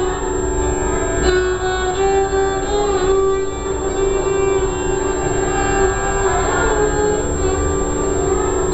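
Violin played in North Indian classical style, an improvisation in Raag Lalit: bowed melodic phrases that glide between notes over a steady drone.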